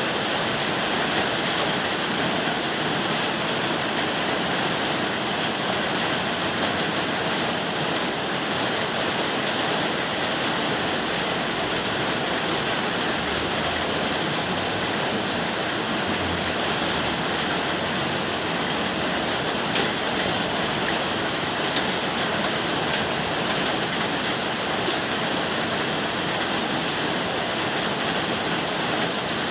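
Steady rain falling as an even, unbroken hiss, with a few sharper ticks of single drops here and there.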